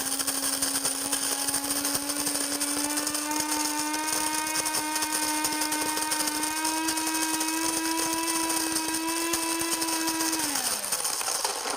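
Cuisinart Supreme Grind electric burr coffee grinder running through a batch of beans: a steady motor whine with a grinding hiss, its pitch creeping slowly upward. Near the end the motor shuts off by itself once the set amount is ground, the whine falling away as it spins down.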